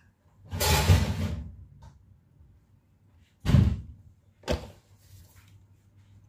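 Kitchen knocks and bangs: a loud door-like bang about half a second in, another about three and a half seconds in, and a short sharp click a second later.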